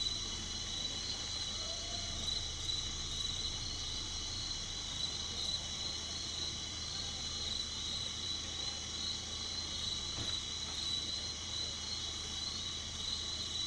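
Night chorus of crickets and other insects: a steady, high, shrill chirring in several layers that does not let up. A low steady hum runs underneath.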